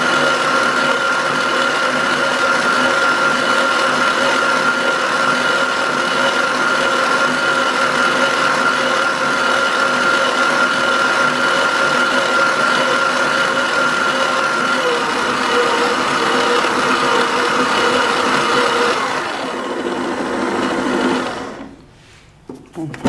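Stand mixer's motor running steadily as its attachment kneads a soft bread dough in a metal bowl. It drops in pitch and level a few seconds before it switches off near the end, followed by a couple of small knocks.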